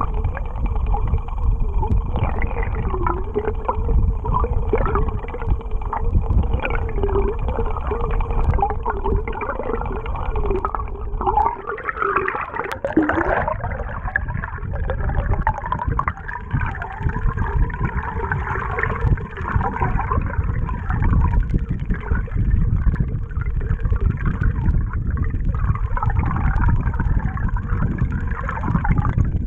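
Underwater sound of a bladed jig (chatterbait) being retrieved through the water, its blade vibrating as it swims. It gives wavering, whine-like tones over a steady low rush of water, with a louder sweep in pitch about twelve seconds in.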